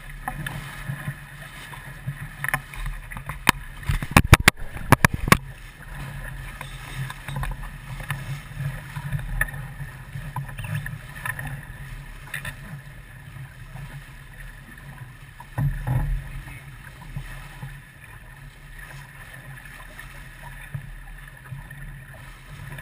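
Sailboat under way: steady rush of water and wind, with a quick run of sharp knocks about four to five seconds in and a single thump later on.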